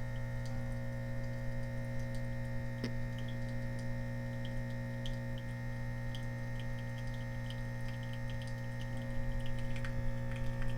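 Nespresso Expert capsule machine's pump humming steadily while brewing a lungo, with faint irregular ticks over the drone.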